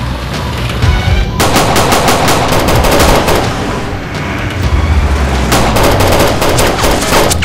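Automatic rifle fire in long, rapid bursts starting about a second and a half in, with a short let-up around four seconds before it resumes.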